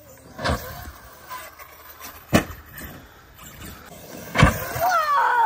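Arrma Outcast 8S EXB RC car running across a field: three sharp knocks, the loudest about four and a half seconds in, and near the end its brushless electric motor whines up and down in pitch as the throttle is worked.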